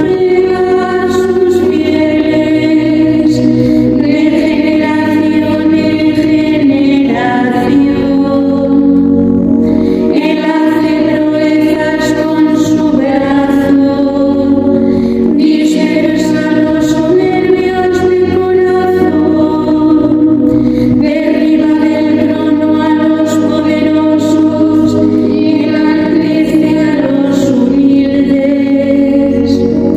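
Women's choir of nuns singing a Vespers canticle in Spanish to a keyboard accompaniment, in long sustained phrases with short breaks between them.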